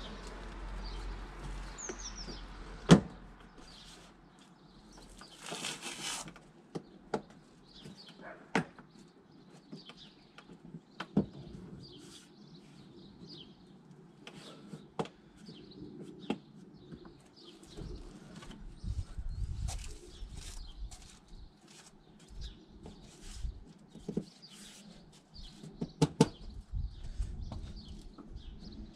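Irregular clicks and knocks of a Saab 9-5's plastic wiper scuttle panel being handled and pushed into place. The sharpest knock comes about three seconds in, with a brief rustle near six seconds. Birds chirp faintly in the background.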